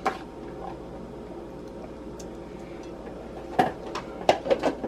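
Kitchen items being handled on a countertop: a faint click at the start, then, a little over three and a half seconds in, a quick run of about six sharp clicks and knocks, over a steady low background hum.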